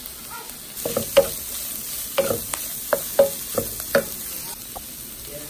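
Wooden spatula stirring celery into ground pork and shrimp frying in a nonstick pan, knocking against the pan several times between about one and four seconds in, over a steady sizzle.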